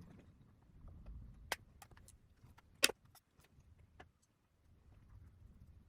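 A series of light clicks and taps from handling makeup packaging, about eight in all, the loudest a little under three seconds in.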